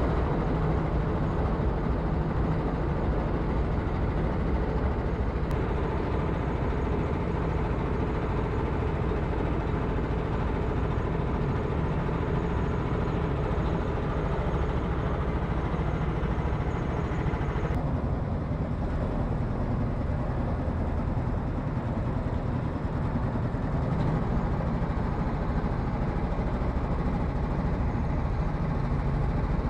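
Honda Africa Twin's parallel-twin motorcycle engine running steadily on the move, a constant drone under a noisy hiss of road and wind. Its tone shifts slightly at an edit about eighteen seconds in.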